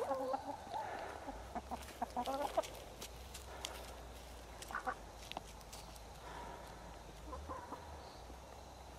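Domestic hens clucking softly in short calls, most of them in the first three seconds and a few more later, with scattered light clicks.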